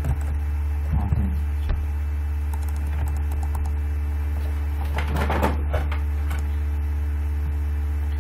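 A few computer keyboard keystrokes in the first couple of seconds, over a loud, steady low electrical hum that is the loudest sound throughout. A brief scratchy noise comes about five seconds in.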